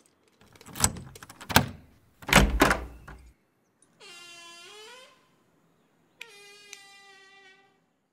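Lock and lever handle of an old wooden door being worked, with a run of clunks and rattles as it is unlocked. Then the door's hinges creak twice as it swings open: first a creak of about a second that rises in pitch at the end, then a longer, steadier one.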